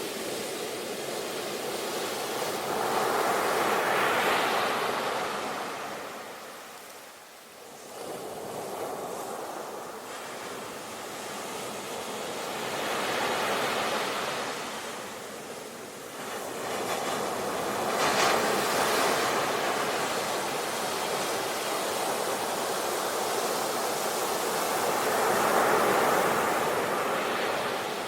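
Sea waves washing in, the surf rising and falling in four slow surges several seconds apart, with a brief lull between the first and second.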